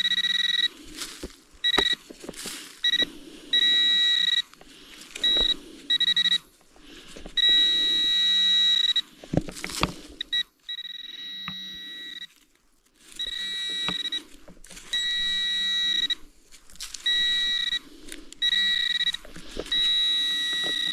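Metal detecting pinpointer sounding a steady, single-pitch beeping tone in repeated on-off bursts of varying length as it is swept through loose soil, signalling a buried metal target close by. Soft scraping of dirt runs underneath.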